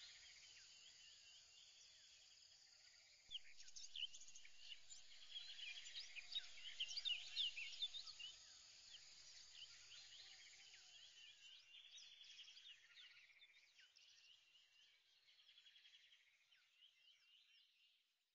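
Faint birdsong: many small birds chirping, with buzzy trills among the chirps, louder a few seconds in and then fading away near the end.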